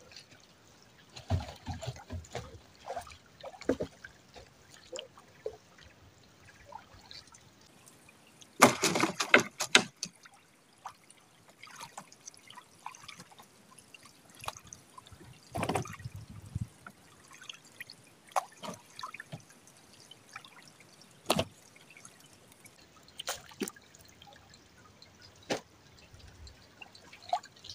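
Water dripping and splashing in irregular bursts as a drift gill net is worked in from the water, with a louder splash about nine seconds in and a few sharp knocks later on.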